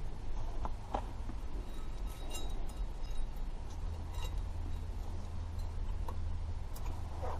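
Light metal clinks and taps, a few scattered strikes, as brake pad shims and hardware are handled at the caliper, over a steady low rumble.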